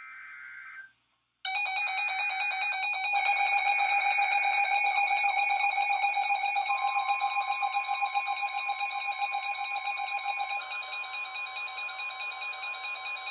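Weather radio emergency alert: a short burst of the screechy SAME digital header data, then about a second later a loud, rapidly pulsing buzzy electronic alarm lasting about twelve seconds. A steady pure warning tone joins it about halfway through. Together they signal that a new warning message is about to be read.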